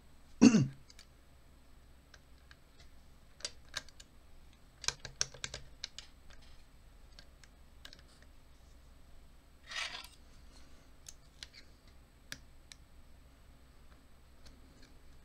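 Small metallic clicks and taps of lock-picking tools being handled and set into an American Lock 1100 series padlock held in a vise. A louder knock comes about half a second in and a brief scrape about two-thirds through.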